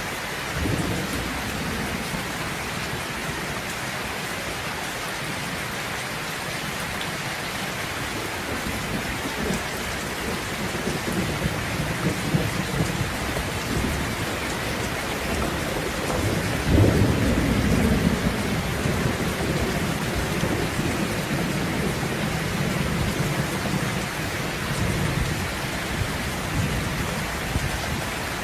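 Steady rain with rolling thunder. The low rumbling builds through the second half, with a sharp, loud thunderclap about two-thirds of the way through that rumbles on for a couple of seconds.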